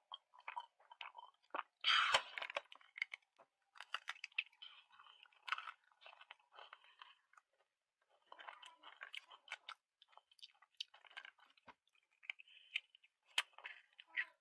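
Someone biting into a homemade cookie with a loud crunch about two seconds in, then chewing it, with crisp crunching in irregular bursts and a short pause partway through.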